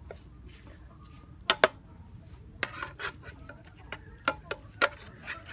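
Metal spoon stirring eel and leafy greens in a nonstick frying pan, with a series of sharp clinks and scrapes against the pan; the loudest two come about a second and a half in.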